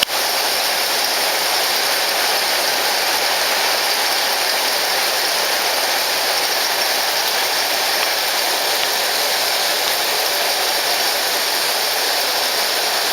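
Very heavy rain pouring down, an even, steady hiss with no let-up.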